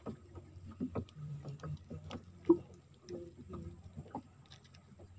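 Scattered small clicks and knocks of a freshly caught giant river prawn and fishing line being handled in a small wooden boat, with one sharp knock about two and a half seconds in.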